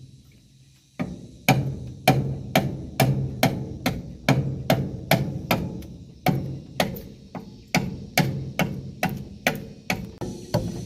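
Bamboo being struck hard and repeatedly, about two sharp wooden knocks a second with a few short pauses, each knock followed by a brief low hollow ring.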